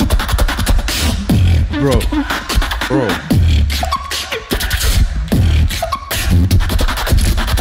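Live beatboxing into a handheld microphone: deep bass kicks with sharp clicks and snare sounds, and a run of falling pitched sweeps in the middle.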